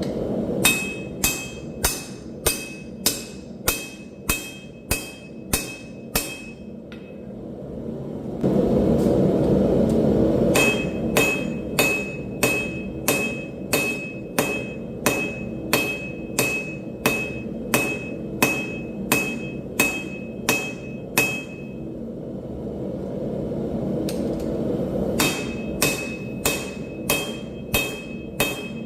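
Hand hammer forging hot steel on an anvil: steady blows about two a second, each with a bright anvil ring. The blows come in three runs with short pauses between them. A steady low roar runs underneath and rises during the first pause.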